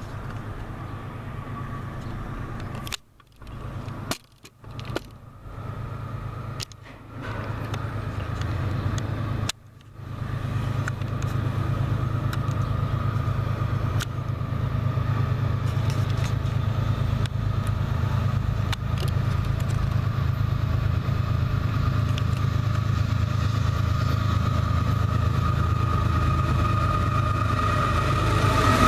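Diesel freight locomotives approaching: a steady low engine rumble that grows louder over the second half, broken by a few sudden brief dropouts in the first ten seconds.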